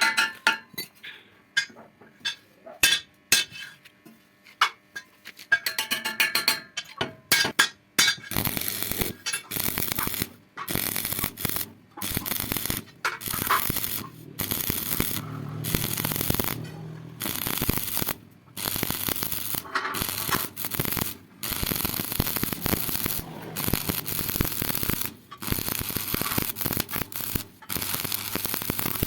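Scattered metal clinks and taps, then, from about eight seconds in, electric arc welding on iron bar and strip: a crackling, sizzling hiss that starts and stops abruptly again and again in short runs of one to three seconds, as weld after weld is struck.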